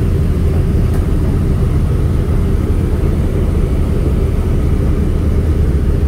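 1928 Ford Trimotor's radial engines running steadily with a deep, even rumble, heard from inside the cabin as the plane taxis.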